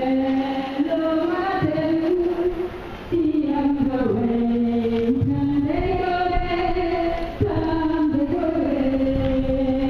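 Slow, chant-like singing in a woman's pitch range, long held notes stepping slowly up and down, with a short break about three seconds in.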